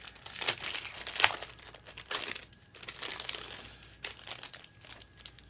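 Crinkling and tearing of plastic packaging as a trading-card box or pack is opened. It comes as an irregular run of crackles, dense for the first couple of seconds and then sparser.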